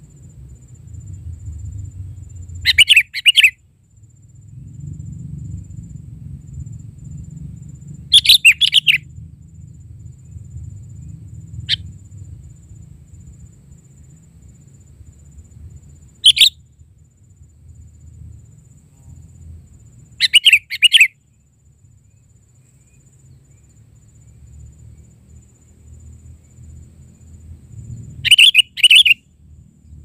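Sooty-headed bulbul calling: five short, loud call phrases several seconds apart, with one brief single note between them.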